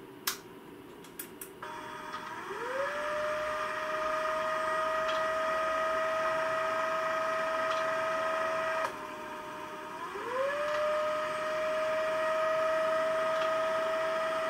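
SP-668 antenna filter's stepper motor turning the variable capacitors through the gear train. After a few clicks, a steady whine starts, climbs in pitch and holds. It stops for about a second around the middle, then climbs and holds again. The two runs are the motor's homing cycle to the optical reference position and then its stepping out to the newly selected filter frequency.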